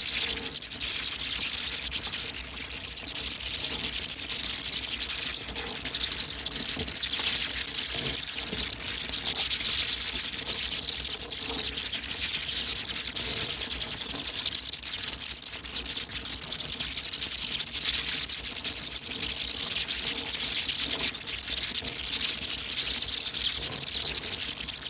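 A large swarm of bats calling together: a dense, continuous mass of high-pitched squeaks and chittering clicks.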